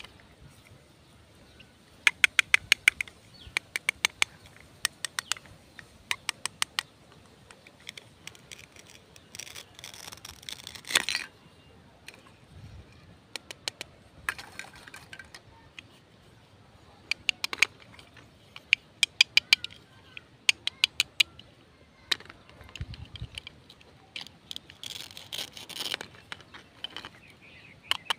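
Toy play-food cutting set being handled: the Velcro patches holding the plastic fruit and vegetable halves tear apart under a plastic toy knife in short crackling bursts of rapid clicks, repeated many times. There are two longer rasping tears, and light plastic tapping and handling between them.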